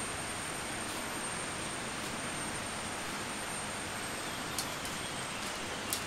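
Steady rushing of a nearby river, with a thin high tone held over it. A few sharp clicks in the last two seconds as the sections of a shock-corded tent pole snap together.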